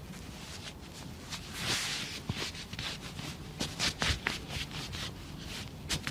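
Hands working on a person's body during a chiropractic massage: a rubbing swell about one and a half seconds in, then a string of short, sharp clicks and taps, densest between about three and a half and four and a half seconds in.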